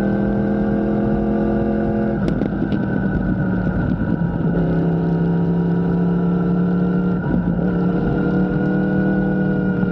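Steady motor hum with a strong low tone, its pitch shifting and briefly breaking up a few times, with two faint clicks about two and a half seconds in.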